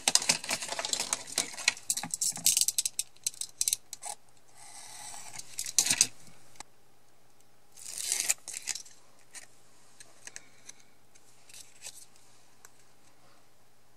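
Double-sided tape and card being handled: crackling as the tape is pulled and its backing peeled, two swishes of paper, then a few faint ticks as the card is pressed onto its base.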